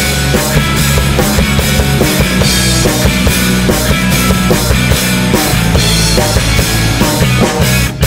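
Loud rock band recording, with a drum kit keeping a fast, steady beat under sustained instruments.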